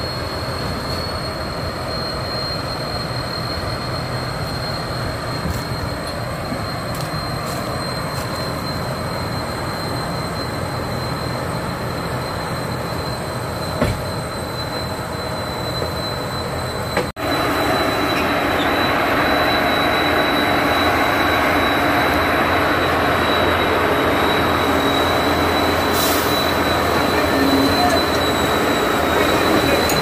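Sit Charoen Kan Chang tracked combine harvester's diesel engine running hard, with the steady high whistle of its turbo blower over it, as the machine drives down the loading ramps off the truck. A little past halfway the sound becomes closer and louder.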